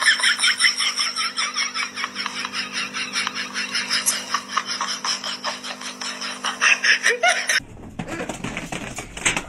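Someone laughing in quick, continuous bursts over a steady low hum; the sound cuts off sharply about three-quarters of the way through.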